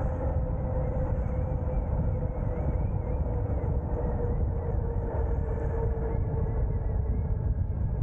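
Wind buffeting the microphone on a moving electric bike, a heavy steady rush, with the steady whine of the e-bike's electric motor running underneath, its pitch sagging slightly near the end.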